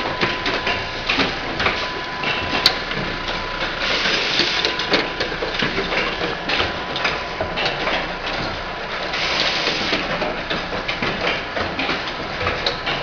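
Automatic insulin syringe assembly machine running: a constant clatter of small mechanical clicks and knocks, with a hiss of air from its pneumatic cylinders twice, about four and nine seconds in.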